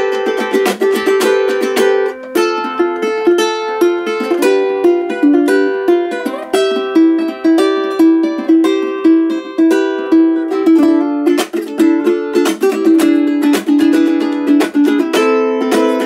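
G-Labo all-acacia concert ukulele played solo: a picked melody over chords, broken up by frequent strums.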